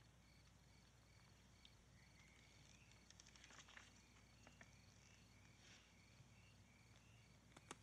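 Near silence: faint crickets chirping in steady repeated pulses, with a few soft paper rustles from magazine pages being handled and turned.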